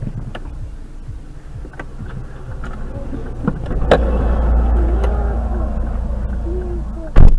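Low rumble of a car on the move, swelling about four seconds in, with a few light knocks and one short, loud bang near the end.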